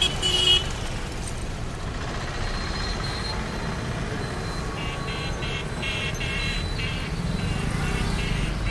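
Busy mixed city road traffic, mostly motorcycles, scooters and auto-rickshaws passing close, with a steady low engine rumble. A short vehicle horn toot sounds right at the start, and a run of short high-pitched beeps comes in the second half.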